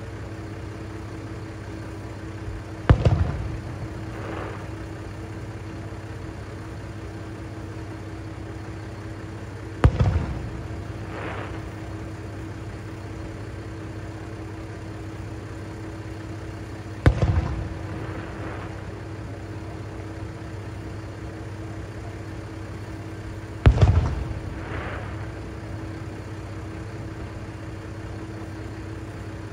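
Aerial fireworks shells bursting at a distance: four booms about seven seconds apart, each trailing off in a rumble with a fainter hiss a second later. Under them runs the steady hum of the Kiha 3710 diesel railcar idling at the station.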